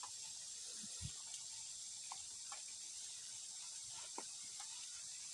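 Steady high hiss of outdoor background with a thin steady high tone, broken by a few faint short clicks and brief chirps, one low thump about a second in.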